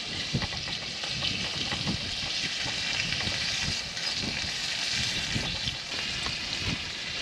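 Slices of meat sizzling steadily on a small iron griddle heated by solid charcoal, with light knocks scattered through it.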